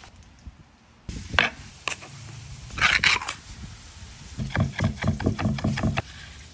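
A chef's knife chopping quickly on a wooden cutting board, mincing chipotle peppers in adobo: a run of rapid strikes, about six a second, lasting over a second in the second half. Before it there are a few sharp knocks and a louder, noisier burst.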